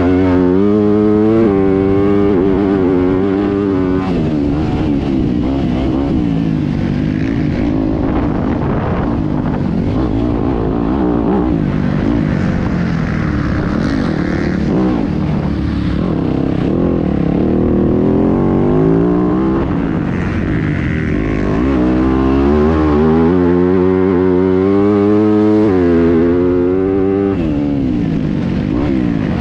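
Yamaha YZ250F dirt bike's single-cylinder four-stroke engine heard from on board while racing off-road. The engine note climbs and drops again and again as the rider works the throttle through the course.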